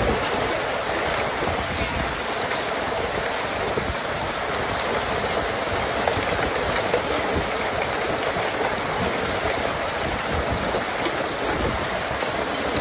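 Hailstorm: hailstones pelting down hard and steadily on the yard, a dense continuous clatter and patter with no let-up.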